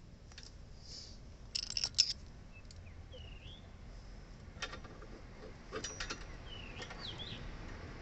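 Sharp metallic clicks and clinks from a hand flaring tool as an air-conditioner copper pipe is clamped in its flare bar and flared. The clicks are loudest in a quick cluster about two seconds in, with a few more near the middle. A small bird chirps a few short calls in between.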